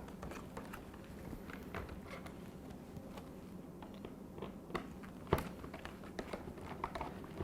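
Faint scattered clicks and light taps of hand work on a dishwasher door's dispenser assembly, its screws and plastic housing, with one sharper click a little past five seconds in.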